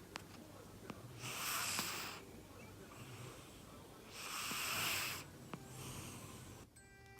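A sleeping cat snoring: two loud, wheezy breaths about three seconds apart, then a fainter one. A few faint clicks fall between them.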